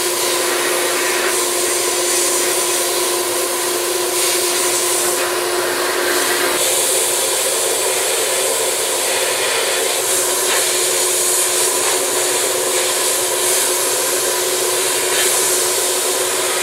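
Abrasive blast cabinet in use: the compressed-air blast nozzle hisses steadily as it strips paint off a metal motorcycle part. The hiss shifts in strength a few times, over a steady hum.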